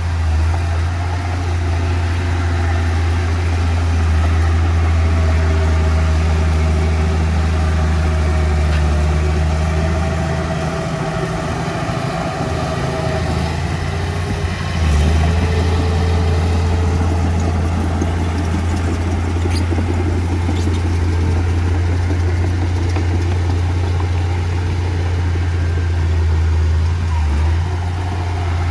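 Heavy diesel engine of earthmoving machinery running with a steady low drone. It eases off for a few seconds about a third of the way in, then picks up again.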